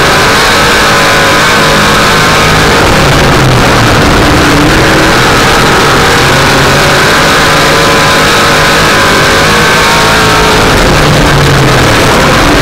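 Dirt-track race car's V8 engine heard from on board, very loud and running hard, its pitch dipping and climbing again twice as it laps the oval.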